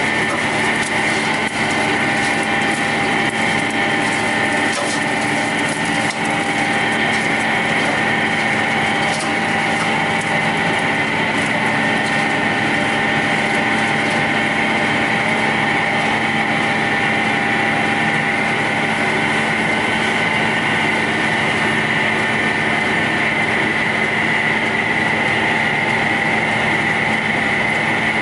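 WEIMA WL 5 single-shaft wood shredder running, its 15 kW motor driving the 80 cm cutting rotor with a steady hum and whine. Scattered ticks and crackles through the first dozen seconds as wood scraps are chopped.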